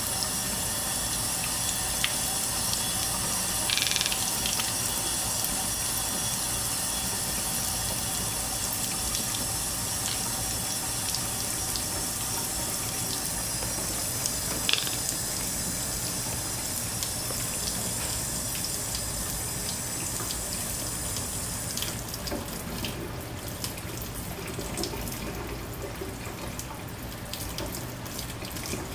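Kitchen tap running steadily in a thin stream into a stainless steel sink, with a few light clicks and taps now and then.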